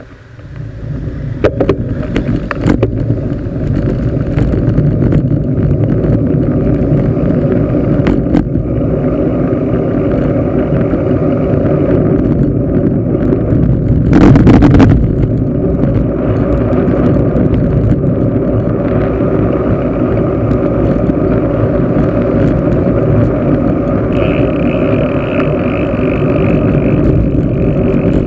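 Wind buffeting the microphone of a handlebar-mounted camera, with tyre and road noise, as a bicycle rides along a street at about 20 km/h. It builds over the first couple of seconds as the bike picks up speed, with a few knocks early on and a louder swell about halfway through.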